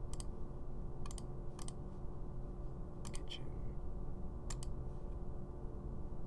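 Computer mouse clicked five times, each click a quick press-and-release pair, over a steady low background hum.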